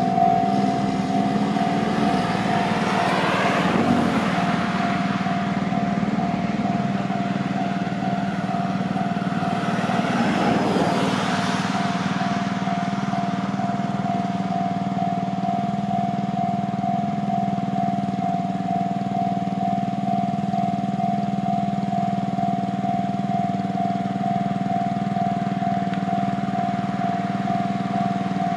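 Japanese level-crossing warning bell ringing steadily and without a break, while a train passes about two to four seconds in and another about ten to twelve seconds in, its wheel and motor noise sweeping in pitch as it goes by.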